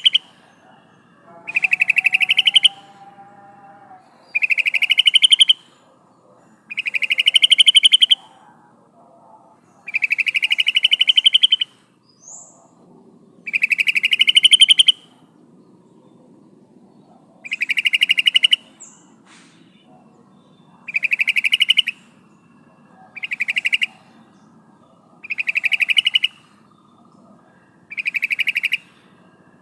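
Yellow-vented bulbul (trucukan) calling over and over: a fast, bubbling chatter of about a second, rising slightly at the end, repeated about every three seconds. It is presented as a female's call to a male.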